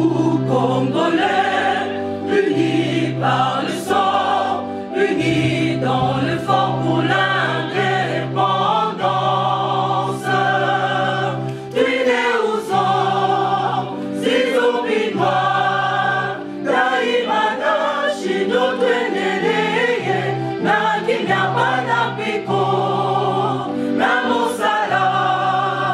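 Background music: a choir singing in a gospel style over held bass chords that change every second or two.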